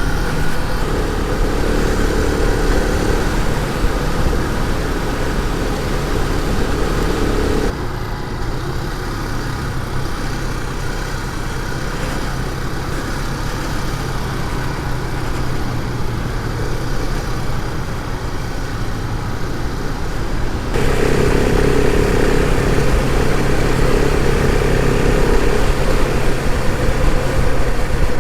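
Adventure motorcycle engine running steadily while riding, with low rumble from wind on the microphone. The sound changes abruptly twice, about eight seconds in and again near twenty-one seconds, where the engine note and level jump.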